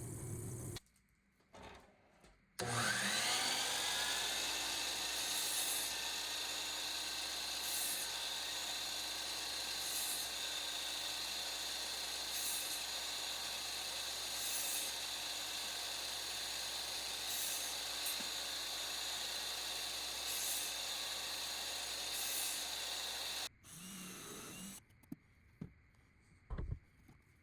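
Power drill spinning up, then running steadily for about twenty seconds as it bores into cedar, and stopping abruptly. A few light knocks follow near the end.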